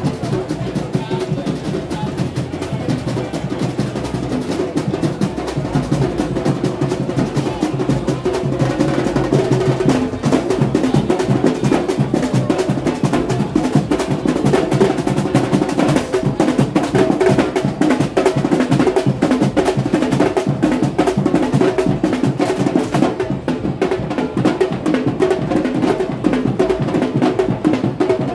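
Street carnival drum band playing a fast, driving rhythm of snare and bass drums with rolls, getting louder about ten seconds in as the drummers come closer.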